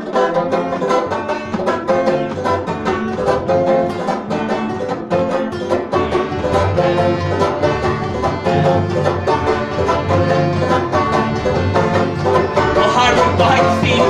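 Live acoustic band playing a fast, driving song: a banjo picked hard over a strummed nylon-string acoustic guitar, with an accordion joining in.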